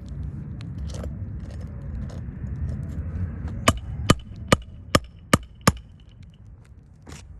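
Hammer striking a roofing snake six times in quick succession, about two and a half blows a second, with a metallic ring on each strike, driving a 1¼-inch roofing nail into the decking under a lifted shingle. A steady low rumble runs beneath it in the first half.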